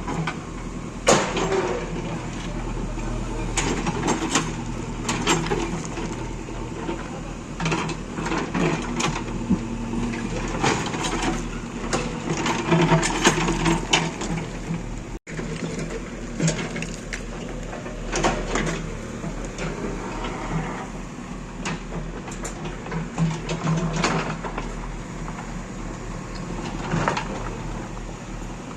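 A diesel engine running steadily, with frequent sharp clanks and knocks over it. The sound cuts out for an instant about halfway through.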